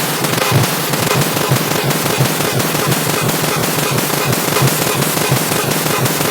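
Car horn beeps stacked and distorted into a loud, dense, harsh wall of noise, full of rapid irregular pops.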